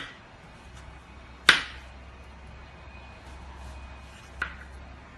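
Kitchen knife cutting fruit on a board: a few sharp knocks of the blade striking through onto the board, the loudest about a second and a half in.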